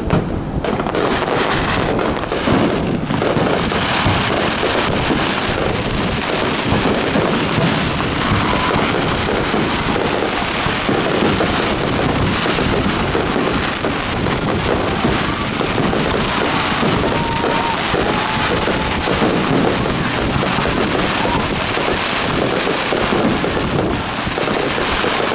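Fireworks display: aerial shells bursting in quick succession, a dense, continuous run of bangs and crackling.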